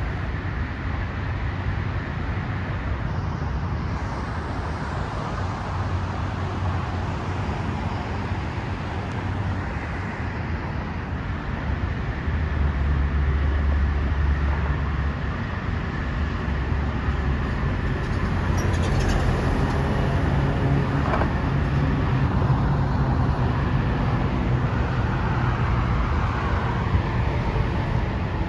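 Steady road traffic noise of cars passing on the roadway, getting somewhat louder about twelve seconds in.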